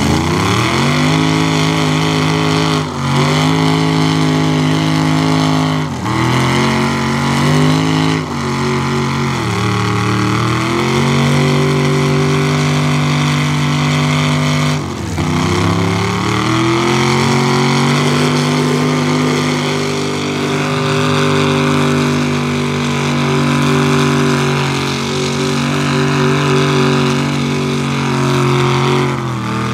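Big-block engines of two mega mud trucks held at high revs under full load as they pull against each other in a tug of war, their giant tyres spinning on concrete. The engine pitch stays high and steady, dipping briefly and climbing back several times.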